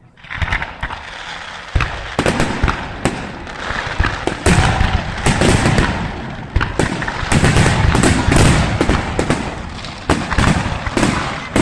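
Fireworks display: a dense barrage of bangs and crackling that starts suddenly just after the beginning and keeps up without a break, with the heaviest bangs in the middle.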